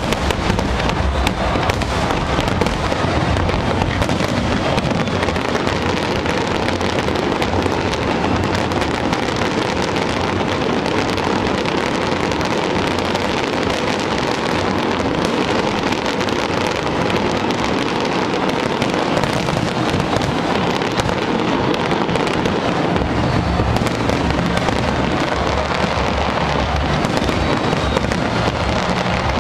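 A fireworks display going off without pause: many overlapping bangs and crackles blend into one loud, steady din.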